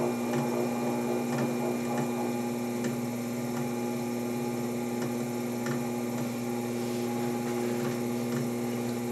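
Electric potter's wheel running with a steady hum while wet clay is thrown on it, with a few faint ticks.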